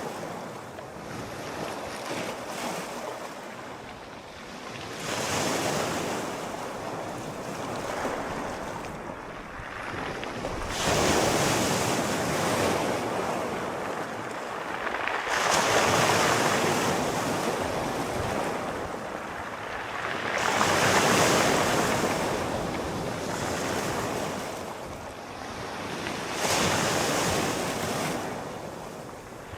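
Sea waves breaking and washing up the shore in slow swells, about one every five seconds, each rising to a rushing hiss and then fading back.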